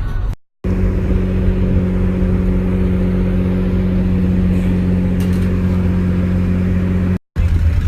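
Steady engine and road drone of a vehicle cruising at an even speed, its pitch unchanging. It is cut off by two short silent edit gaps, one about half a second in and one near the end.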